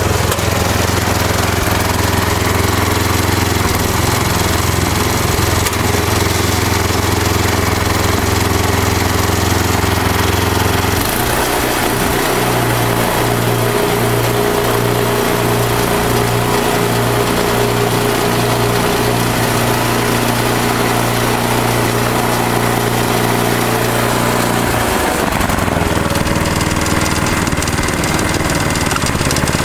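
Ariens 1028 snowblower engine running steadily on a test run after a gearbox replacement. Its note shifts about eleven seconds in and again near twenty-five seconds.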